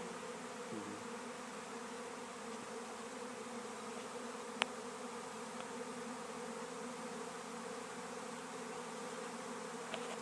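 A honeybee swarm in the air: the steady, even buzz of many bees flying together. A single sharp click cuts through about halfway.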